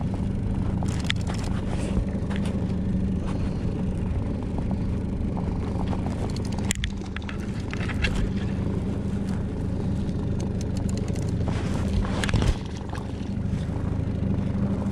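Boat's outboard motor running steadily as the boat cruises on the lake, a constant low drone, with a few short knocks scattered through it.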